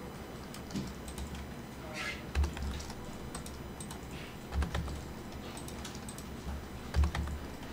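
Computer keyboard and mouse clicks, scattered and irregular, from working in the 3D modeling software, with three dull low thumps, the loudest near the end.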